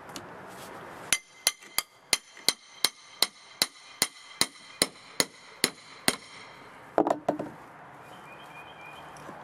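A hammer struck about fourteen times in quick succession, roughly three blows a second, each blow ringing, while a rotted wooden stair tread is worked loose. About a second after the last blow comes a short, lower-pitched noise.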